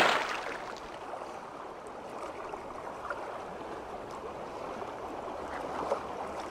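Water sound effect: the tail of a splash dies away in the first second, followed by a steady rushing, bubbling water noise that fades at the end.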